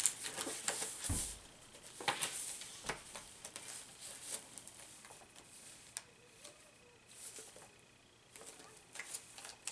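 Paper being handled and rustling as journal pages, tags and scraps are turned over, with light crinkles and taps every second or so and a soft low thump about a second in.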